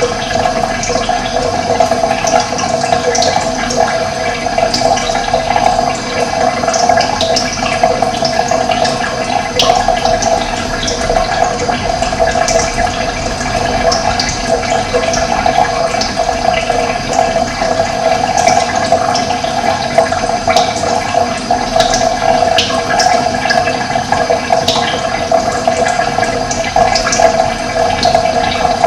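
Steady rush of running water, with short high bird chirps scattered throughout.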